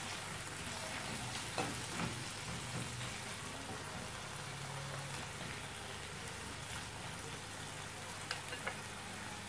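Sliced zucchini and onion sizzling steadily in a frying pan with the marinade sauce. A wooden spatula stirs them, knocking lightly against the pan a few times.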